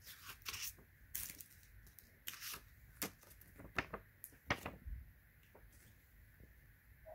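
Paper inserts being handled and pulled out of a plastic Blu-ray case: a run of rustles and paper snaps with several sharp clicks over the first five seconds, then quiet.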